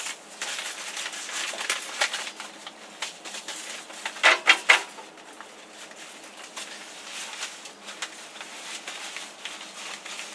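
Seed packets and dry plant stems being handled: irregular crinkling and rustling, with a louder flurry of crackles about four seconds in.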